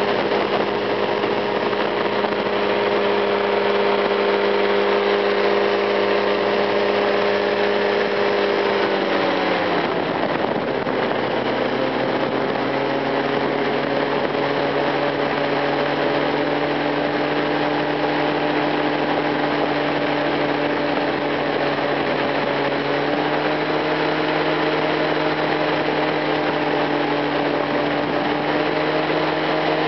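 Powered parachute's engine and propeller running steadily in flight, heard on board; about ten seconds in the throttle comes back and the engine settles to a lower, steady pitch, with a constant rush of airflow underneath.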